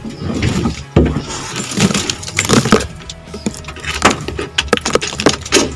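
Irregular knocks, clicks and rustling as a Toyota Kijang's roof headliner is pulled and worked loose by hand, about a dozen sharp knocks spread unevenly through the stretch.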